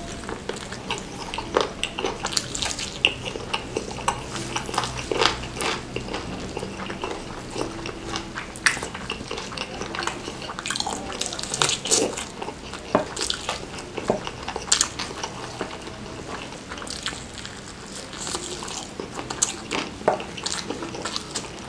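A person chewing a mouthful of soft fried chicken drenched in chili sambal, close to the microphone: irregular wet mouth smacks and small clicks.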